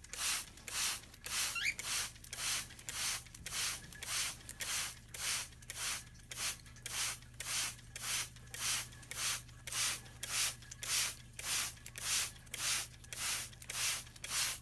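Handheld trigger spray bottle misting water, pumped again and again in a steady rhythm of about three squirts every two seconds, each a short hiss.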